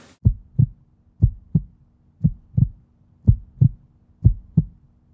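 Heartbeat sound effect: five pairs of low thumps, one pair about every second, over a faint steady hum.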